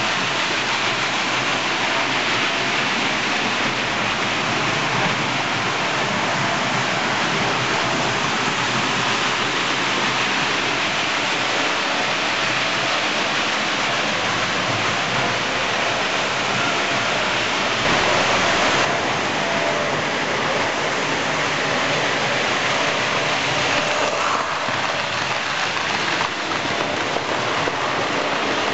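Model trains running on a model railway layout close to the microphone: a steady, even rattle and hum of wheels on the track and small electric motors, with a brief louder patch about 18 seconds in.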